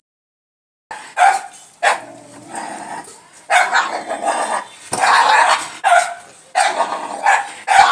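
Dog barking repeatedly, a string of loud, harsh barks starting about a second in.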